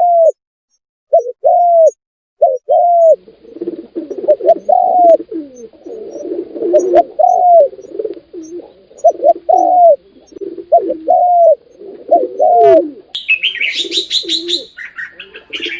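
Birds calling: repeated short low calls, each rising then falling, soon overlapping as several birds call at once; about thirteen seconds in, high quick chirping joins.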